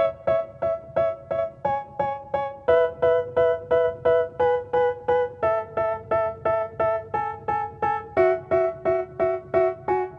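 Background music: a repeating keyboard figure of short piano-like notes, about three a second, with the chord changing every few seconds and no vocals.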